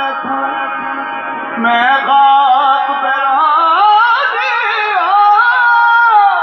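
Qawwali music: a sung, ornamented melody gliding and wavering in pitch over harmonium accompaniment.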